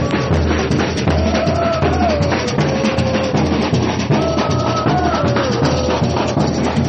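Samba percussion music: a bateria of drums playing a steady, dense beat, with long held, gliding melody notes over it.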